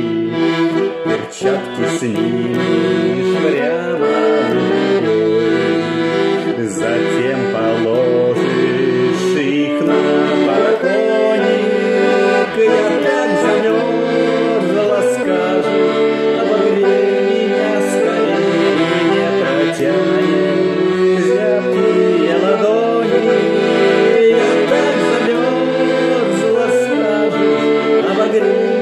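Bayan (Russian button accordion) playing an instrumental interlude of a song, sustained chords under a moving melody.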